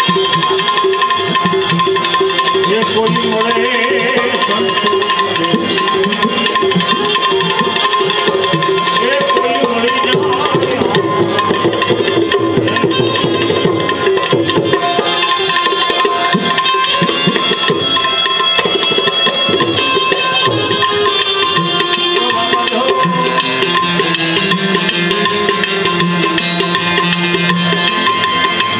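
Live Gujarati bhajan music: tabla drumming steadily under melodic accompaniment.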